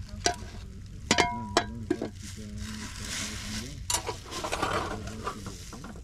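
Metal cooking utensils clinking against pots and an iron griddle over a wood fire: a few sharp clinks, some ringing briefly. There is a stretch of hissing in the middle.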